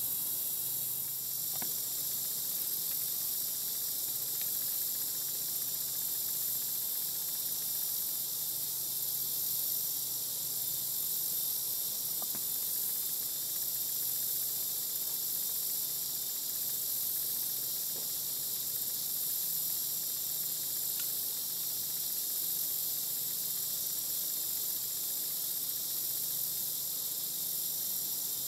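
Steady high-pitched chorus of insects, crickets and the like, droning on without a break.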